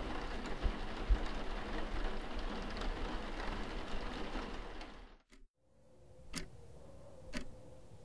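A steady hiss that cuts out about five seconds in; after a moment of silence a clock starts ticking, about once a second.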